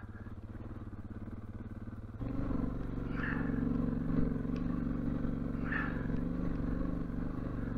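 Dual-sport motorcycle engine running steadily at low revs. About two seconds in, the note steps up louder as the bike pulls under load up a steep hill.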